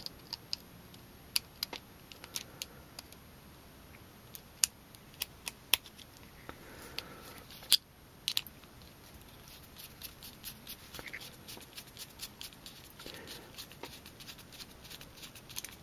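Scattered small clicks and taps of a plastic servo horn being fitted onto a Savox servo and its small screw turned in with a screwdriver, with a fainter run of quick little clicks in the second half.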